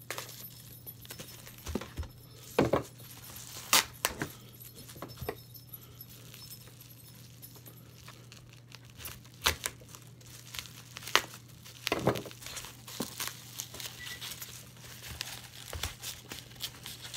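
Cardboard box being cut open with a knife and its packing material handled: irregular crinkling and tearing with scattered sharp clicks and rustles.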